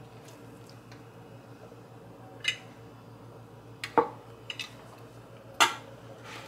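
A metal serving spoon and a spatula clinking and scraping against a plate and a square baking pan as food is dished up: a handful of sharp clinks, the loudest about four seconds in, over a faint steady low hum.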